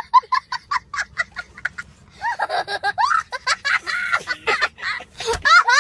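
A young child laughing hard: a quick run of short, high-pitched cackles, then longer squealing laughs that rise and fall in pitch.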